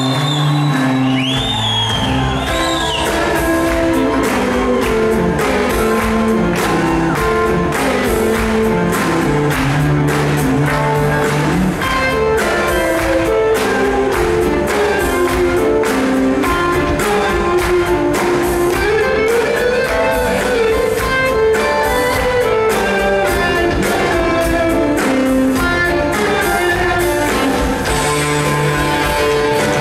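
Live rock band playing in a large hall: electric guitars, bass, drums and organ, with a steady drum beat under sustained guitar and organ notes.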